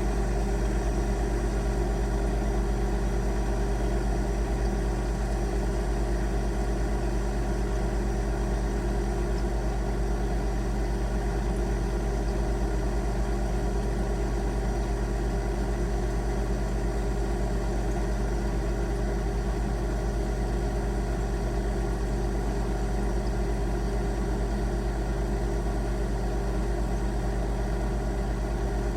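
Refrigerator compressor humming steadily, a low electrical hum with a few faint higher tones, unchanging throughout.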